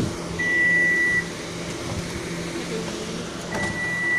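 Two long, high electronic beeps about three seconds apart from a vehicle's warning beeper, over the low hum of an idling engine.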